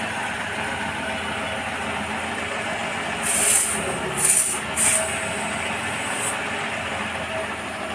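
Short sharp hisses of air escaping from a car tyre valve, three close together and a fainter one a little later, as the tyre inflator's threaded hose connector is screwed onto the valve. A car engine idles steadily underneath.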